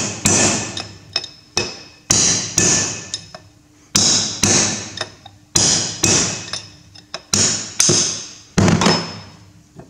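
Hammer striking a steel punch to drive a Massey Ferguson 135 rear axle bearing out of its bore. About a dozen sharp metallic blows, many in pairs about half a second apart, each ringing briefly.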